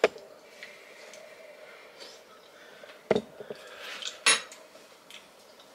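Cutlery and dishes clinking: a few separate sharp clinks and knocks, the loudest just after four seconds in, over a faint steady hum.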